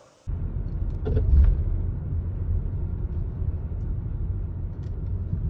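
Car driving: a steady low rumble of road and engine noise that cuts in suddenly just after the start, with a couple of brief knocks about a second in.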